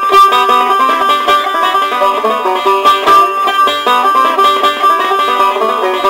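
Bluegrass-style background music led by a quickly picked banjo.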